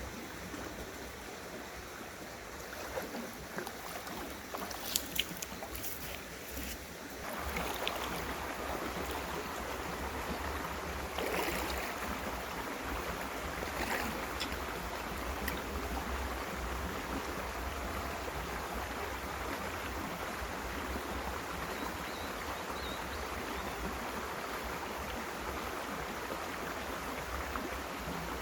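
Mountain stream water running over rocks, a steady rushing that grows louder about seven seconds in. A few sharp clicks come near the fifth second.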